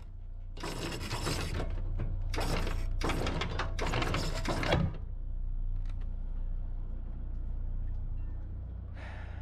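Anchor chain rattling over the bow roller as it is hauled in, in four clattering spurts over the first five seconds, above a steady low rumble. After that only the low rumble remains.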